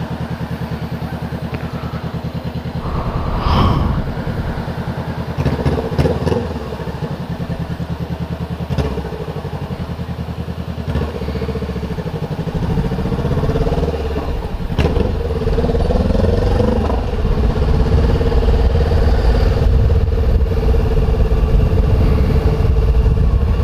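Honda CBR500R's parallel-twin engine running at low speed in stop-and-go traffic, heard from the rider's seat, with a few short knocks in the first several seconds. It grows louder and steadier in the last few seconds as the bike gets moving.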